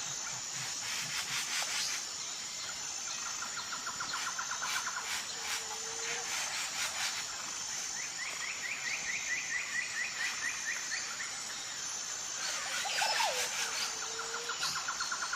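Jungle ambience: a steady high-pitched insect drone, with birds calling over it in rapid trills of quick repeated notes, a few short low whistles and some clicking bursts.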